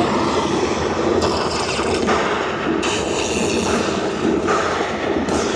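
Slot machine game sound effects: a loud, dense rumbling clatter whose character shifts every second or so.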